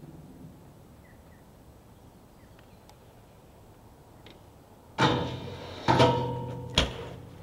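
Quiet outdoor background with a few faint chirps, then a BMX bike's hard impacts: two sudden loud hits about a second apart, each ringing on briefly, followed by two sharp knocks.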